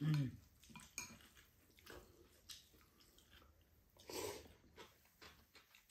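Cold noodles being eaten: chewing, small taps of chopsticks and utensils against bowls, and one louder noodle slurp about four seconds in.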